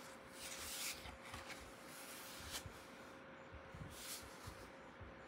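Faint rustling and brushing of hardcover art-book pages being handled, strongest about half a second to a second in, over a faint steady hum.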